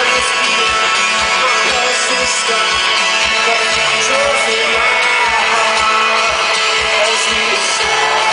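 Live rock band heard from the crowd: strummed guitar over a steady kick-drum beat, with singing.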